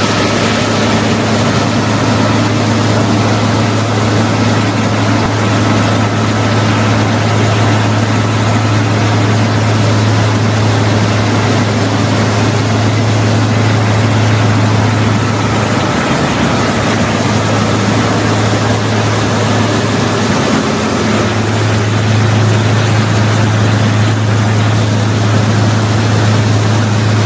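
Wirtgen W 2000 cold milling machine's diesel engine running steadily with a loud low drone while the machine mills the asphalt road surface.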